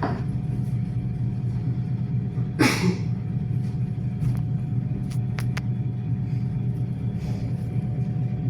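Steady low hum and rumble of a suburban electric train, heard inside the carriage. A short hiss about two and a half seconds in falls in pitch, and a few sharp clicks follow.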